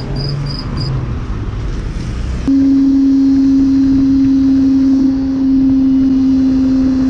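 A motorcycle cruising at a steady speed: a loud, steady engine drone at one unchanging pitch over wind rush. It starts suddenly about two and a half seconds in, after a low hum of engines in traffic.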